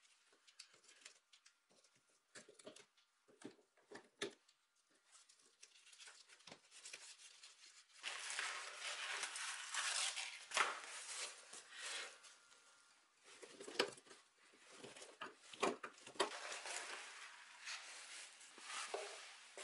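Old upholstery being stripped by hand from an armchair backrest panel: scattered light scrapes and taps at first, then from about eight seconds in a louder run of tearing and scraping with sharp snaps as the covering, fabric and padding are pulled away.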